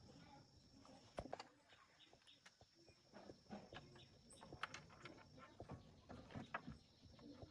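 Near silence, with scattered faint clicks and light taps over a faint steady high-pitched tone.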